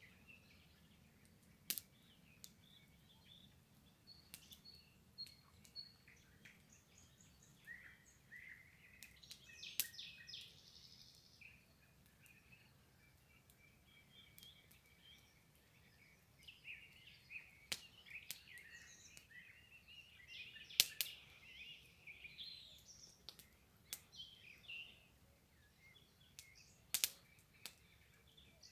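Small songbirds chirping and singing quietly in short phrases, with several sharp clicks scattered through, the loudest two near the end.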